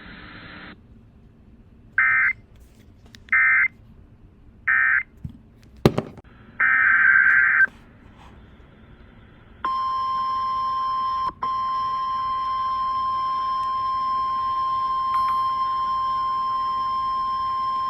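Emergency Alert System data bursts: three short, equally spaced screeching bursts of the end-of-message code, a sharp click, then one longer burst opening the next alert. These are followed by the steady 1050 Hz NOAA Weather Radio warning alarm tone, held for about nine seconds with one brief dropout. Together they mark the end of one warning and the start of the next.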